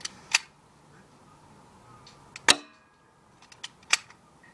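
Panther OPS MRP .45 BB pistol firing: a few sharp cracks and clicks, the loudest about two and a half seconds in with a short ring after it.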